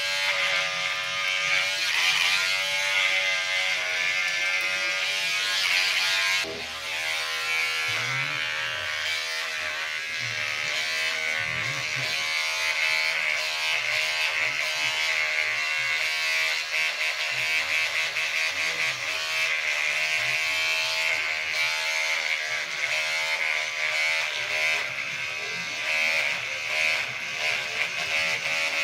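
Electric shaver running with a steady, high buzz while shaving stubble, the pitch wavering slightly as it is worked over the face; the level dips briefly about six seconds in.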